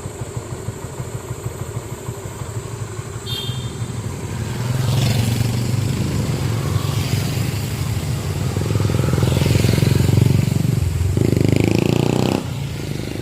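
Motorcycle engines running with a fast low pulse, growing louder about four seconds in and revving up before dropping off suddenly near the end.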